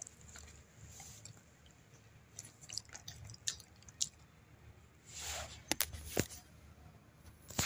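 A small dog licking and smacking its lips close to the microphone: scattered small wet clicks, with a short rustle about five seconds in.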